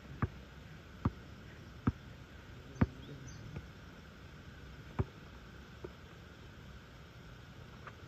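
Basketball dribbled on an asphalt court: six separate bounces, about one a second, with a pause of about two seconds after the fourth and the loudest bounce about three seconds in.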